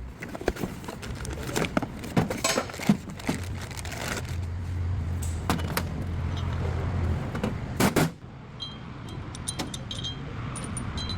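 Hyundai Elantra with a worn rear wheel bearing: a low steady drone, strongest for a few seconds in the middle, under many sharp clicks and rattles.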